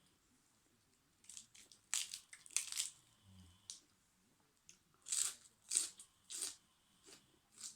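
Close-up crunching and chewing of a person eating crunchy food, a series of crisp bites with a short pause in the middle.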